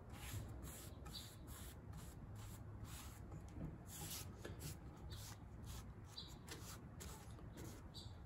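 Faint swishing of a natural-bristle paintbrush laying a wet coat of spar urethane along a painted 2x4 board, in a run of short back-and-forth strokes.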